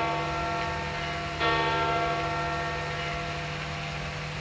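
Large church bell tolling, with strokes about two seconds apart. One stroke lands about a second and a half in and rings on, fading, over the dying ring of the stroke before.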